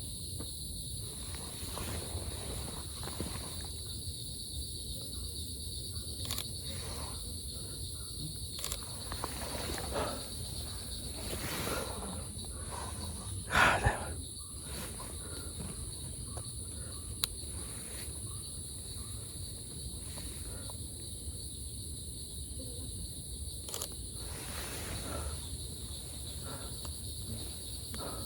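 Forest insects making a steady, high-pitched drone. Faint footsteps and rustling run through it, with one louder, brief rustle about halfway through.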